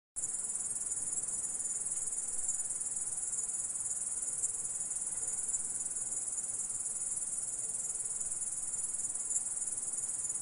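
Grasshopper stridulating: a steady, high-pitched, continuous chirring that switches on abruptly just after the start and holds evenly throughout.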